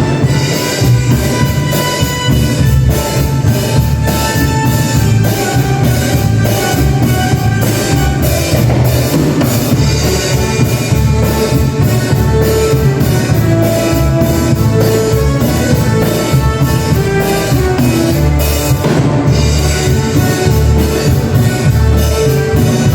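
Live band music: a drum kit keeps a steady beat under a bass line and a melody.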